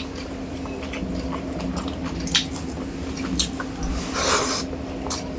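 Close-miked eating of rice with fish curry: wet chewing with scattered mouth clicks and smacks, and a brief louder, noisier sound about four seconds in.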